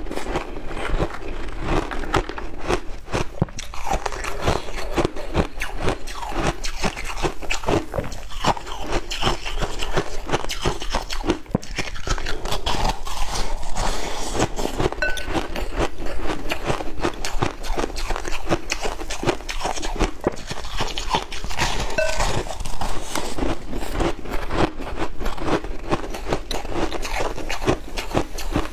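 Close-up biting and chewing of soft, snow-like ice soaked in cola: dense, rapid crunching all through.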